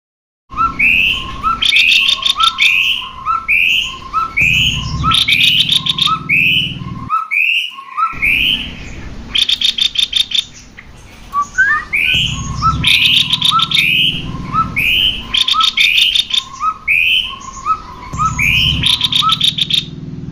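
Cucak kopi songbirds calling: quick repeated two-note phrases, a lower note answered by a higher slurred one, broken by bursts of fast rattling chatter. There is a brief break in the middle.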